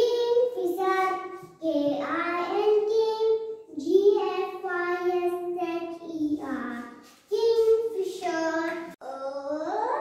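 A young child singing in a sing-song voice: several drawn-out phrases with short pauses between them.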